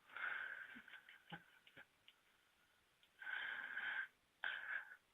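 Baby African pygmy hedgehog making short breathy hissing bursts, three in all, with a few small clicks between the first two.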